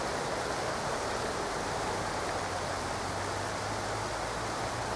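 Steady rain falling, an even hiss with no single drops standing out.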